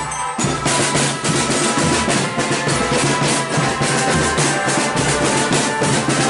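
Marching drum band playing: drums beating a steady, dense rhythm under held melody notes.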